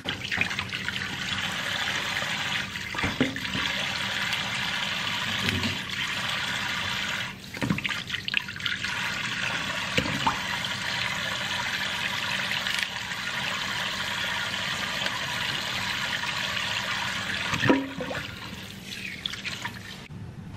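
Kitchen faucet running in a steady stream into a stainless steel sink as frosted king crab legs are rinsed under it, with a few short knocks of shell and hands against the sink, the loudest near the end.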